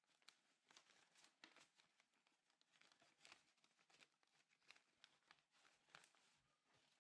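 Faint rustling and crinkling of origami paper being handled and folded by hand, with many small irregular crackles.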